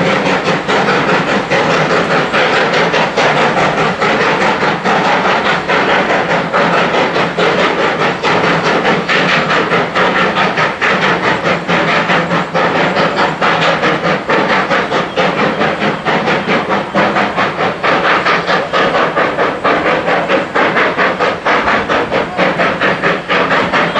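Steam locomotive 218A working along with its carriages, its exhaust chuffing in a fast, even rhythm over a steady hiss of steam.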